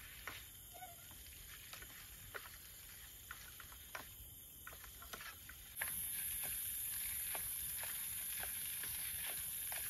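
Light clicks and scrapes of a spatula stirring noodles in a cooking pan. A steady high hiss underneath grows suddenly louder about six seconds in.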